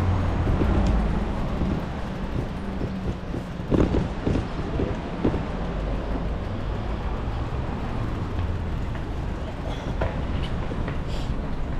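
Steady street traffic and road noise, with a low engine hum in the first two seconds and a cluster of knocks and rattles about four seconds in.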